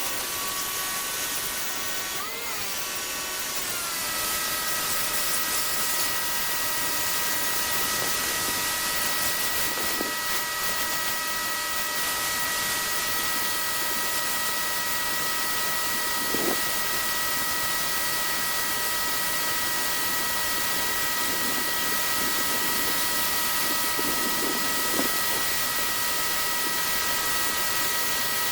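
Greenworks electric pressure washer running with the wand spraying concrete. The motor's whine rises in pitch over the first few seconds, then holds steady over the even hiss of the spray, with a few faint knocks.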